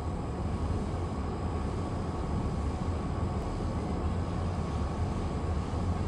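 Steady outdoor background rumble, strongest in the low end, with a faint thin whine above it and no distinct events.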